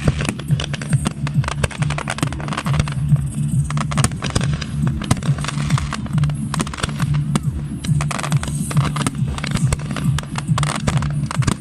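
Fireworks crackling and popping in a dense, continuous stream of sharp cracks, over a steady low tone.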